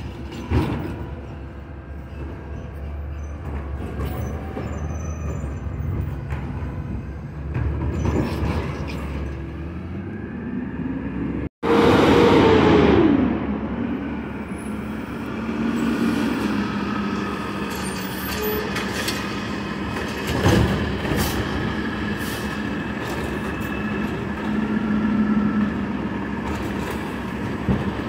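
Heil Rapid Rail automated side-loader garbage truck running at the curb. Its diesel engine and hydraulics drone steadily with a held whine. About twelve seconds in comes a loud hiss with a falling squeal as the truck's brakes bring it to a stop, and a sharp bang follows later.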